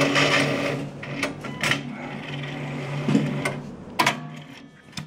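The motor and feed rollers of a small machine with a roller slot run with a steady hum and fade out about three seconds in. A few sharp mechanical clicks come along the way, the last of them about four seconds in.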